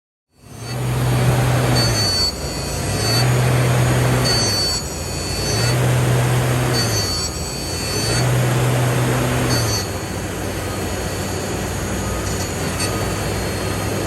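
Industrial machinery running, with a low hum and a high whine that come in together and drop out four times, about every two and a half seconds. About ten seconds in it settles into a steady drone.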